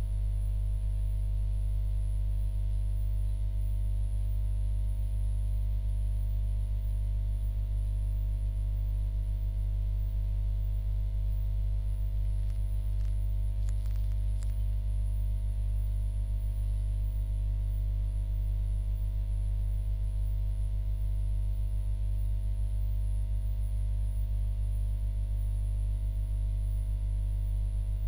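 Steady low electrical hum, unchanging throughout, with a few faint clicks about halfway through.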